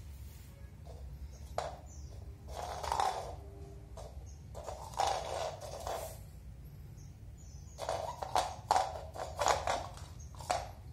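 A kitten playing with a small ball on a tile floor: irregular scuffs, knocks and rolling of the ball and paws on the tiles, in several short bursts, the busiest near the end.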